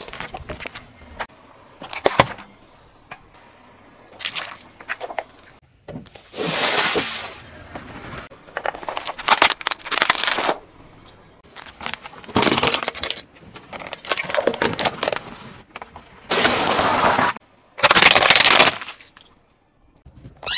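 A car tyre rolling over and crushing small objects one after another, such as cardboard matchboxes and squishy mesh-wrapped balls. First come a few sharp cracks, then several longer crunching and squashing noises of a second or two each, which start and stop abruptly.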